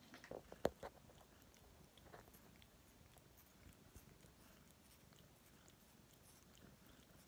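A few soft knocks and rustles in the first second, the sharpest about two-thirds of a second in, from a cat being handled and petted in a lap. Then near silence with a few faint ticks.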